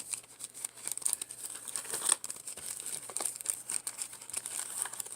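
Crinkling and crackling of a trading card pack's wrapper as it is handled, with irregular crackles throughout.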